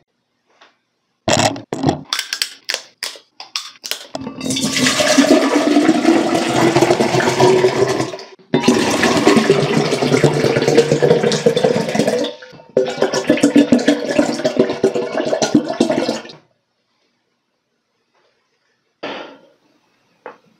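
Fiji Water poured from two plastic bottles at once into a tall glass, in three long pours, the pitch rising as the glass fills. Before the pouring, a run of sharp clicks and crackles.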